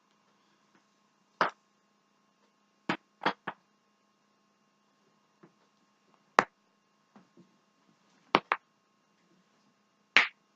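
Neck joints cracking: eight sharp pops, some single and some in quick runs of two or three, over a faint steady hum.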